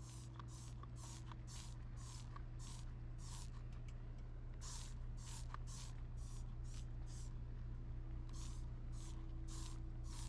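Trigger spray bottle squirting bug-remover cleaner onto the painted front cap of an RV: about twenty short hissing sprays in quick runs, with a break around the middle.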